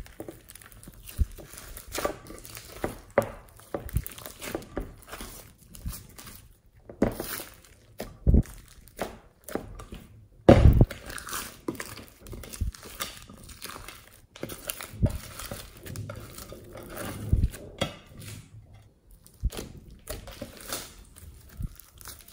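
Hands squishing, folding and stretching a large mass of soft slime mixed with foam beads: irregular wet squelches and short pops, the loudest about ten seconds in.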